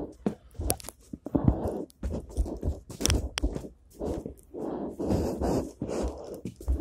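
Close, irregular rustling and scuffing from gloved hands moving over fabric as a person crawls on all fours, a string of short noisy bursts about half a second each with a few sharp clicks of the phone being handled.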